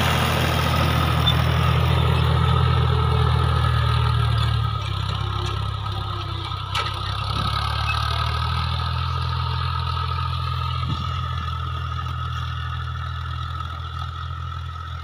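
Fiat 480 tractor's diesel engine running steadily as it pulls a tine cultivator through the field. The engine sound drops in level about five seconds in.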